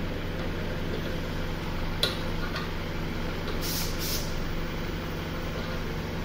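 Steady low machine hum, with a single metallic click about two seconds in and two short hisses near four seconds while a charging hose's brass fitting is screwed onto a refrigerant cylinder valve.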